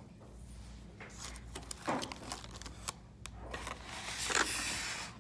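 Quiet handling noises as a Belgian waffle is pulled apart by hand: scattered light clicks and soft rustles, with a longer rustle near the end.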